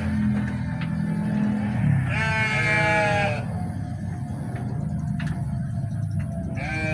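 A sheep bleating: one long wavering bleat about two seconds in, and another starting near the end, over a low steady drone that fades after about two seconds.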